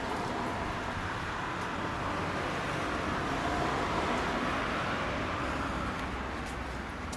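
Road traffic noise from the street: a vehicle's sound swells to a peak about midway, then fades.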